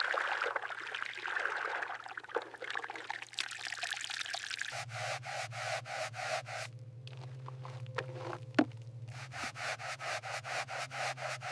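A stiff brush scrubbing a tyre. The scratching is irregular at first, then becomes even back-and-forth strokes, about three or four a second, over a steady low hum.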